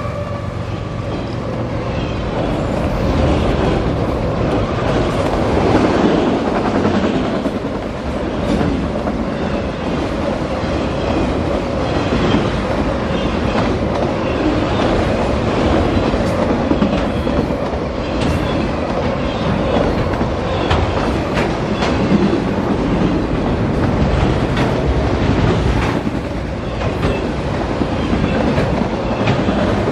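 Freight train of autorack cars rolling past at a grade crossing: a steady rumble with a running clickety-clack of steel wheels over rail joints. A mid-train GE diesel locomotive goes by at the start, its tone fading away about a second in.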